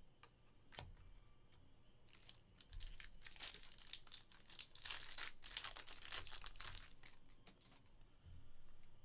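Foil wrapper of a 2022 Topps Stadium Club Chrome baseball card pack being torn open and crinkled in the hands. It is a dense crackling that starts about two seconds in and lasts around five seconds.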